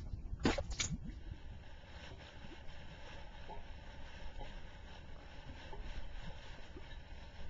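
Mud pot venting gas: two loud pops of bursting bubbles about half a second in, then fainter scattered bubbling over a steady low rumble.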